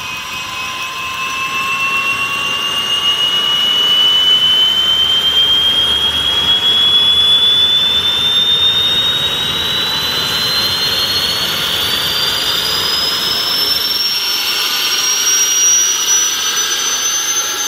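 The small turbine engine of a Mosquito XET ultralight helicopter spools up during startup. Its high whine rises steadily in pitch and grows louder over the first few seconds.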